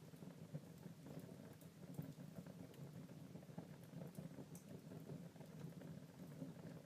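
Wood fire burning quietly in a fireplace, with a low steady rush of flames and scattered faint crackles and pops.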